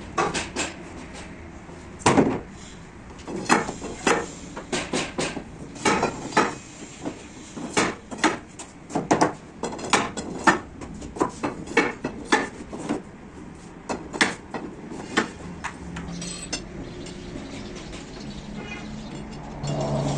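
Wooden blocks and steel threaded rods of a homemade door press knocking and clinking in quick, irregular strikes as the blocks are stacked over the rods. The strikes thin out after about fifteen seconds.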